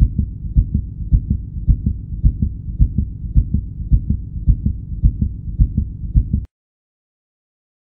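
Recorded human heartbeat, presented as the mother's heartbeat as heard by a baby in the womb: low, muffled thumps at nearly two a second, stopping abruptly about six and a half seconds in.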